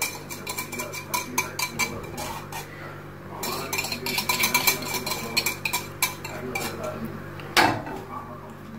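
Wire whisk stirring yogurt in a metal pot, its wires clicking rapidly and unevenly against the pot's sides. Near the end there is a single louder knock as the whisk is set down against the pot.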